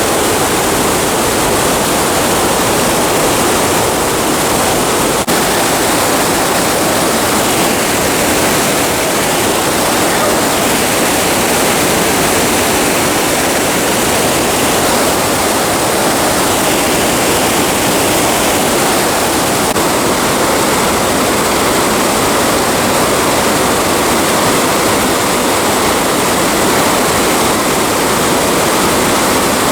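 Waterfall: water pouring and splashing in a loud, steady rush.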